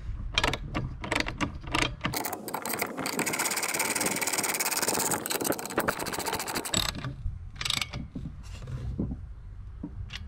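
Socket ratchet clicking as the bolts holding the seal plate to the pool pump motor are tightened. Separate clicks at first, a fast run of clicks from about two seconds in, then a few scattered clicks near the end.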